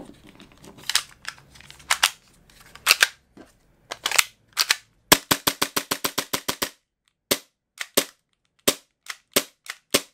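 Sharp mechanical clicks from a Tokyo Marui Glock 19 gas blowback airsoft pistol being worked by hand after reassembly: single clicks about a second apart, a rapid run of about a dozen clicks about halfway through, then single clicks roughly twice a second. These are the sounds of the slide and trigger mechanism being cycled to check that everything works.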